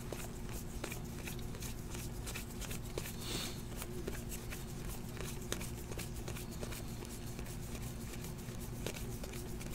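A stack of 2017-18 Donruss basketball trading cards being flipped through by hand, one card after another, giving an irregular run of light ticks and rustles several times a second over a faint steady low hum.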